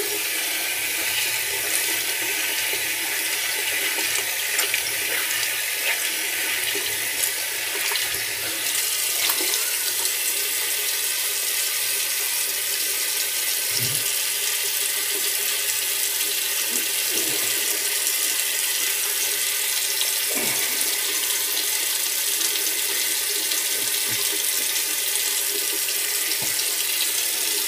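Bathroom sink tap running steadily into the basin while the face is rinsed, with a few faint knocks.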